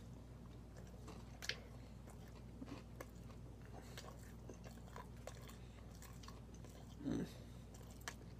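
Faint chewing and mouth sounds of a man eating a steak burger, with scattered soft clicks, over a faint steady low hum. A short, louder low mouth sound comes about seven seconds in.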